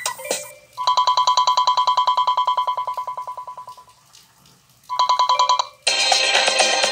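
Electronic phone ringtone imitating a ringing telephone bell: a rapid trill that rings for about three seconds and fades away, then rings again briefly. Near the end a different, busier musical ringtone starts.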